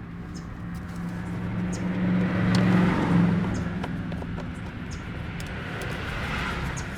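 A road vehicle passing by: its engine and tyre noise swell to a peak about three seconds in and then fade, with a smaller swell near the end.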